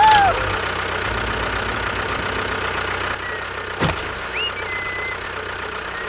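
A small motor running steadily, with a single sharp knock just before the four-second mark.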